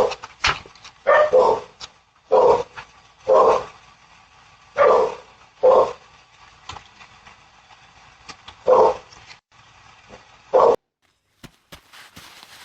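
A dog barking, about ten single barks at uneven intervals, picked up by a home security camera's microphone. The barking cuts off suddenly near the end.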